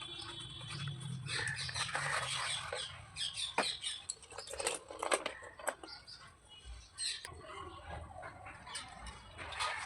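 Slate pencils being handled and scraped: irregular clicks, taps and scratchy rubs.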